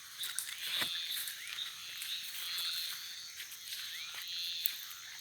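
Evening chorus of frogs and insects calling by the water: a steady high trill with short rising chirps that recur every second or two, and a few faint clicks.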